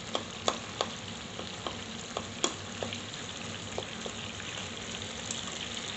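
Chicken and tomato masala sizzling in oil in a karahi as it is stirred, with irregular sharp clicks of the spoon knocking and scraping the pan. A faint steady low hum runs underneath.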